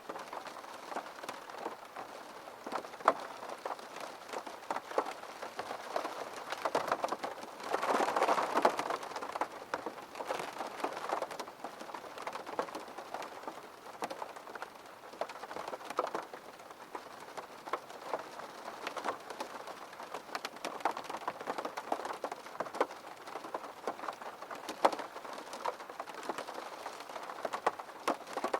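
Steady rain, with many distinct drops ticking on a surface; it grows heavier for a moment about eight seconds in.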